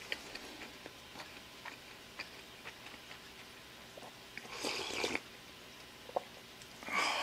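Close-up eating sounds: quiet chewing of fried rice with small mouth clicks, then a half-second slurp of miso soup from the bowl about four and a half seconds in. A brief airy sound follows near the end.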